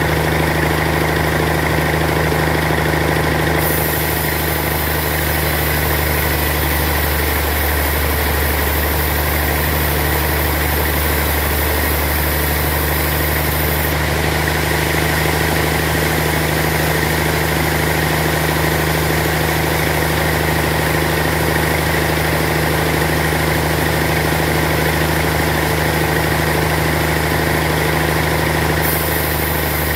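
Band sawmill running steadily while its blade saws a large block of suar wood, a level machine hum. A high hiss comes in a few seconds in, drops away about halfway through and returns near the end.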